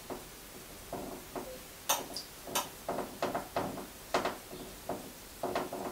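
A spoon tapping and scraping against a dish and board while mashed potato is scooped out and spread: a string of light, irregular clicks.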